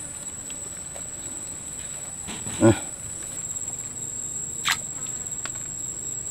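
Steady high-pitched drone of insects in the swamp vegetation. A short, low voice-like sound stands out about two and a half seconds in, and a sharp click comes a little before five seconds.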